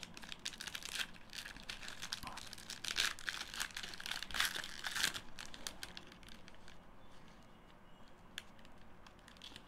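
Trading card pack wrapper being torn open and crinkled, dense crackling for the first five seconds or so, then quieter with a few scattered faint clicks.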